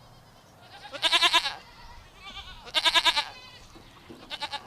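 Goat bleating: two loud wavering bleats, about a second in and near the middle, then a fainter, shorter one near the end.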